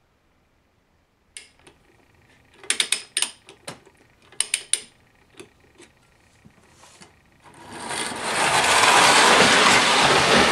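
Sharp metal clicks and knocks as the Lionel 1588 Torpedo clockwork locomotive is handled on the tinplate track. About seven and a half seconds in, its wound spring motor starts running: a steady whirring rush that builds within a second and holds, its speed regulated by a Marx-type centrifugal governor as the locomotive runs off along the track.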